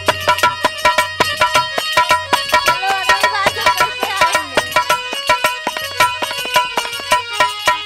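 Instrumental interlude of a Bhojpuri ghazal: a harmonium plays a melody over quick, busy dholak drumming.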